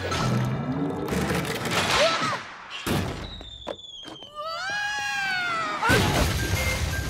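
Cartoon sound effects over music: a sharp hit about three seconds in, then a long whistling glide as a giant water balloon flies, ending in a loud burst and a rushing splash of water about six seconds in.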